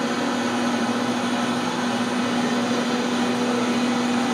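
Electric blender running steadily, a constant motor hum over a whirring noise.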